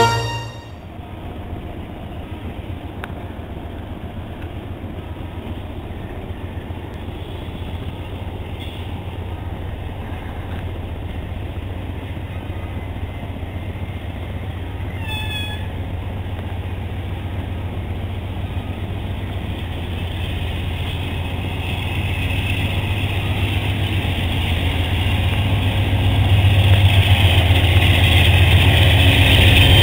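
Diesel locomotive engine drone with a rolling rumble as an NJ Transit GE P40 pushes a multilevel commuter train past, growing steadily louder as the locomotive nears. A brief squeal that falls in pitch comes about halfway through.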